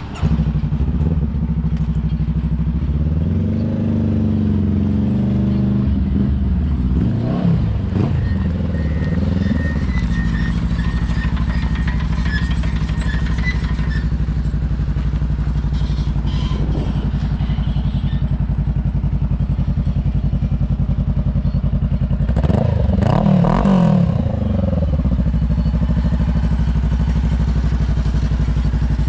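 Honda CBR500R's parallel-twin engine running, rising and falling in pitch a few times during the first ten seconds, then idling steadily, with one short rev about two-thirds of the way through.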